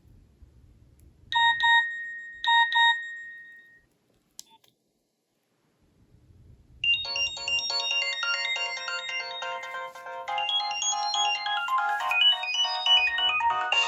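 Nokia 3300b phone speaker giving two pairs of short beeps, then a few seconds of silence. A ringtone melody with several notes at once then starts about seven seconds in and keeps playing.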